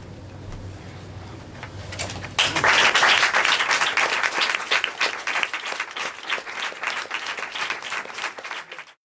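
Small audience applauding. It breaks out after about two seconds of quiet room tone, is loudest at first and then slowly thins, and cuts off abruptly near the end.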